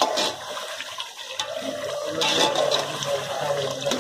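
Water sloshing and splashing in a pot of potatoes and peas as it is stirred with a metal ladle, with a brighter splash about two seconds in.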